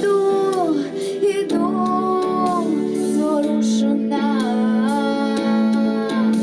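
Song: a female voice singing long held notes that bend in pitch, over a steady instrumental backing.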